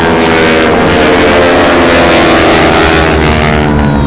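A formation of aerobatic display jets passing overhead: loud, steady engine noise whose pitch falls steadily as they go by.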